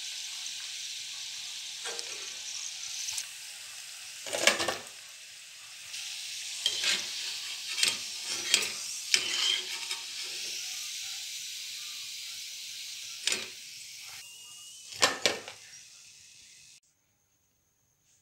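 Semolina pakoras deep-frying in hot oil in a metal kadai, a steady sizzle. A metal slotted spatula knocks and scrapes against the pan several times, loudest about four and a half seconds in and again near the end. The sizzle cuts off suddenly just before the end.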